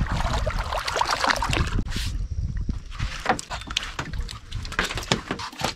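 Water splashing as a hooked motoro stingray thrashes at the surface beside a boat, then, about two seconds in, a run of sharp knocks and thumps as the ray is hauled aboard onto the deck.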